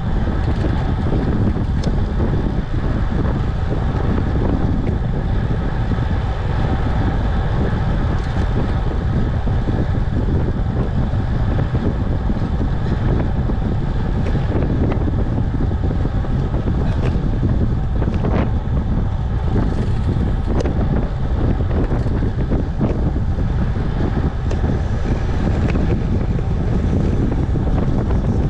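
Steady wind rushing over the microphone of a camera carried on a moving bicycle, a constant low rumble at riding speed.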